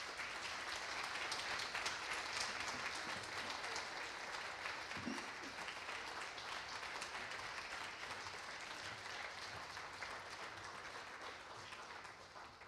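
Audience applauding, a steady clatter of many hands that slowly dies away near the end.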